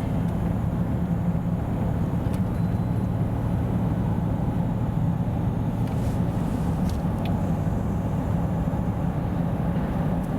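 Steady low drone of a moving vehicle, heard from inside, with a few faint ticks.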